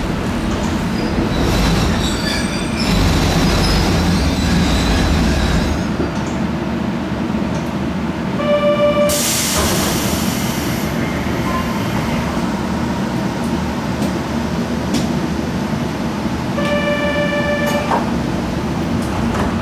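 Kobe Electric Railway 1100 series train coming to a stop: the rumble of wheels and running gear dies away about six seconds in. A short electronic tone is followed by a loud hiss of released air. Near the end the tone sounds again, for a little over a second, as the doors open.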